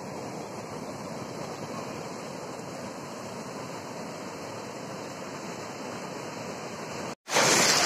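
Ocean surf washing over a shallow beach: a steady, even rush of breaking waves and foam. Just after seven seconds it cuts out for a moment and comes back as a louder rush of water.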